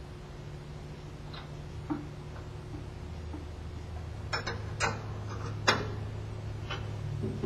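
Baker band resaw running with a steady low hum, with irregular light metallic taps and clicks at the blade guide. This tapping is what the operator takes as the sign that the guide is set a little too low against the blade.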